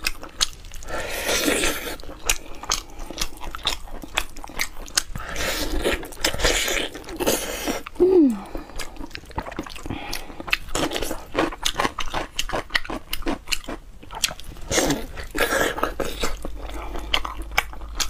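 Close-up eating sounds of a person biting, tearing and chewing braised beef knuckle (cow's kneecap meat and gristle), a dense, irregular run of sharp little clicks and wet mouth sounds. About eight seconds in there is a brief falling hum from the eater's voice.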